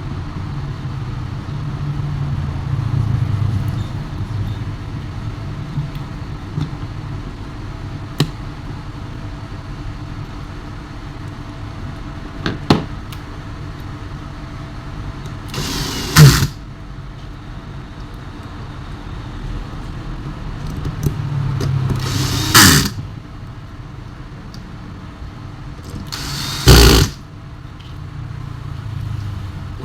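Power drill whirring in three short bursts of about a second each, as screws are driven or backed out of an old table fan's body, over a steady low rumble in the background.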